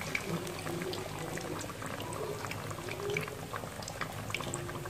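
Gram-flour-battered potato and aubergine pakoras deep-frying in hot oil: a steady sizzle with dense, continual small crackles and pops.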